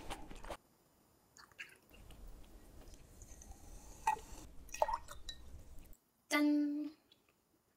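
Chewing at the start, then a drink poured from a can into a glass, with a low fizzing hiss and a few small clinks for several seconds. Just after the pour, a brief steady pitched tone lasting about half a second is the loudest sound.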